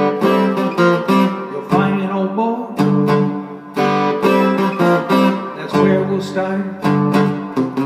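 Small-bodied acoustic guitar strummed in a steady blues rhythm, chord after chord, with no singing over it.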